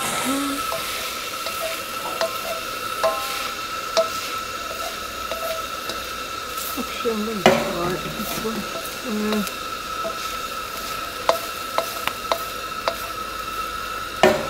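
Diced vegetables sizzling in a steel wok over a gas burner, under a steady hiss, while a metal spoon stirs them, scraping and knocking against the pan now and then.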